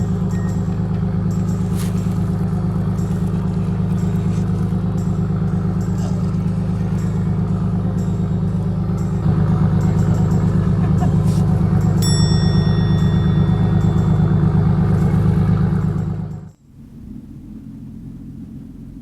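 A boat engine running steadily, getting louder about nine seconds in, then cutting off sharply near the end and leaving only a faint low rumble.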